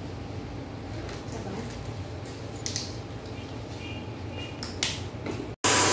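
Quiet salon room tone: a low steady hum with a few faint clicks and handling noises. Near the end the sound cuts abruptly to a handheld hair dryer blowing, a loud steady hiss.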